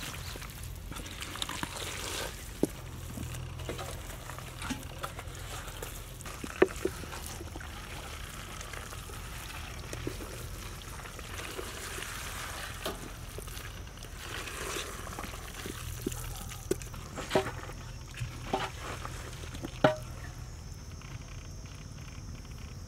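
Hands mixing a large batch of oily, chilli-coated cut mango pickle in a big metal vessel: a steady wet squelching and sloshing, with scattered short sharp knocks.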